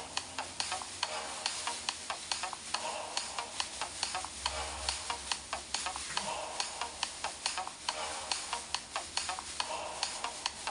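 A plastic skirt and tinsel garland crinkling and rustling with dance movements: a crackly, sizzling rustle broken by quick clicks, several a second.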